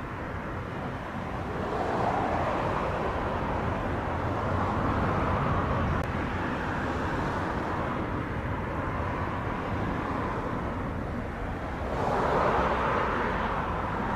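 Jet engines of a Boeing 737-800 at takeoff power as the airliner climbs out just after departure, a steady broad roar that swells about two seconds in and again near the end.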